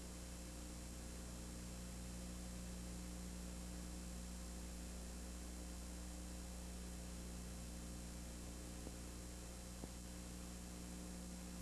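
Steady electrical mains hum with hiss, and no field or crowd sound; a faint tick about ten seconds in.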